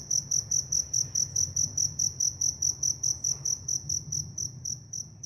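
A cricket chirping: an even train of short, high-pitched chirps, about four to five a second, growing fainter near the end.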